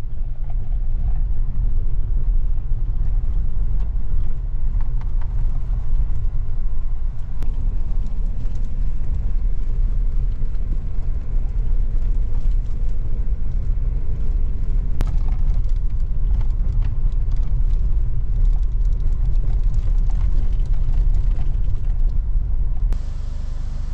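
Strong wind buffeting the microphone: a loud, gusting low rumble, with a couple of faint clicks.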